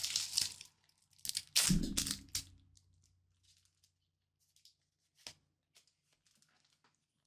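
Foil booster-pack wrapper of Pokémon trading cards crinkling and being torn open in the first two and a half seconds, then quiet with a few faint ticks and one sharp click of the cards being handled.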